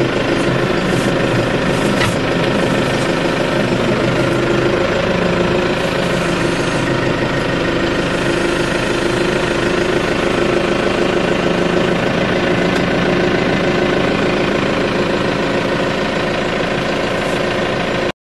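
Tractor engine running steadily, heard from inside the cab, with a few short knocks in the first couple of seconds; the sound cuts off abruptly at the very end.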